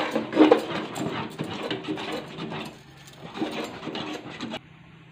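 Steel spoon scraping and knocking against an aluminium pot as thick batter is stirred. Short pitched vocal sounds come over it just after the start and again near four seconds.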